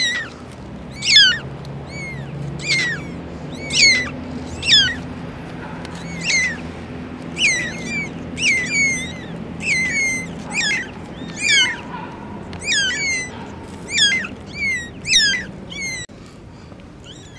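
Very young kittens mewing over and over, about one thin, high cry a second, each falling in pitch.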